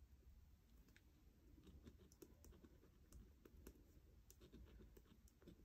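Near silence: faint scratching and small ticks of a pen writing on the paper of a planner.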